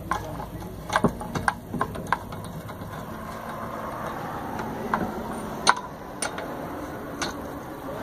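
Sharp metal clicks and clinks of lug nuts and a socket being fitted onto a car wheel's studs by hand, several in quick succession in the first two seconds and a few more later. A steady low engine-like hum runs underneath.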